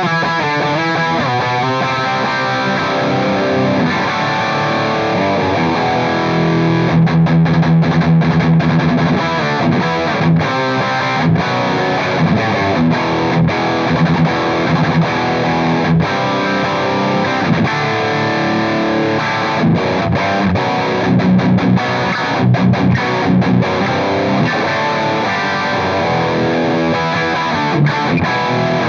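Electric guitar played with heavy high-gain distortion through a Soldano SLO overdrive pedal: riffs and sustained chords broken by many short, choked stops.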